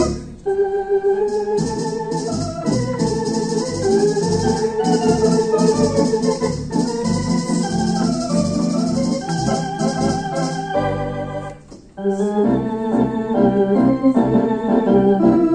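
Theatre organ playing sustained chords under a melody, the tones wavering with vibrato, over a rhythmic high percussion accompaniment. The music breaks off briefly about three-quarters of the way through, then comes back in with full chords.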